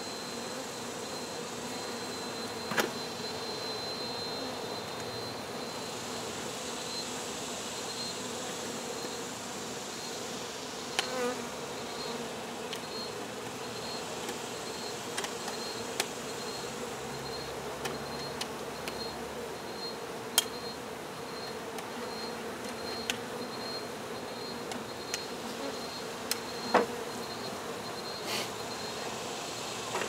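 Honey bees buzzing in a steady hum around their exposed colony in a roof eave, with a few short sharp ticks here and there.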